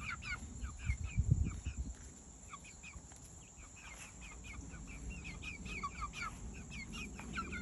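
Young pullets, not yet laying, peeping: a steady stream of short, high, falling 'pew pew' calls from several birds, overlapping. A few low thumps about a second in.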